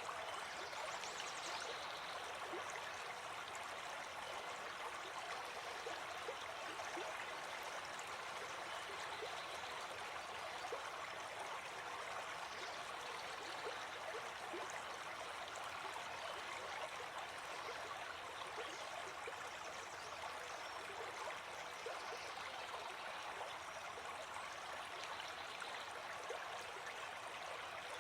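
Stream water running steadily, a continuous rushing with faint small splashes through it.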